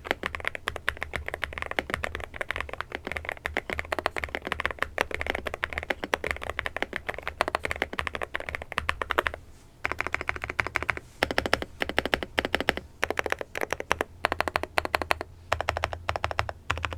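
Typing on a gasket-mounted Akko 5098B mechanical keyboard fitted with Akko V3 Piano Pro switches: a fast run of keystrokes with a brief pause a little past halfway.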